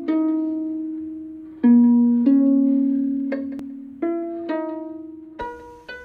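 Intro music of slow plucked-string notes, each one struck sharply and left to ring and fade before the next.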